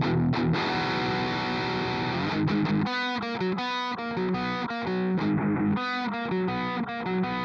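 Heavily distorted electric guitar riff played back through the Blue Cat Audio Destructor distortion plugin's amp emulation. It holds a chord at first, then turns to short, choppy stabbed chords from about three seconds in.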